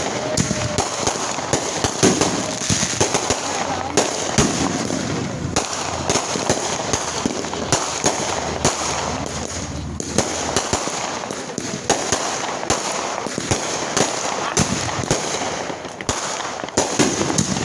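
Fireworks going off in a dense, continuous barrage: many sharp bangs and crackles in quick succession, with voices underneath.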